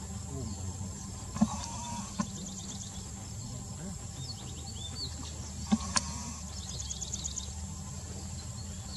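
Forest ambience: birds chirping in short repeated trills and a few rising whistles over a steady insect hiss and a low hum. Several sharp clicks or knocks cut through, the loudest pair about two-thirds of the way in.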